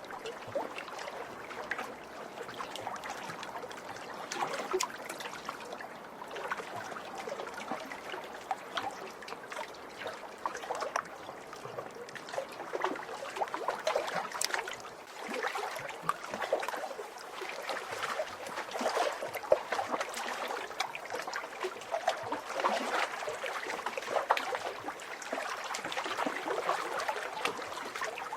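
Small lake waves lapping and splashing against the shore, an irregular run of small splashes and trickles with no steady rhythm.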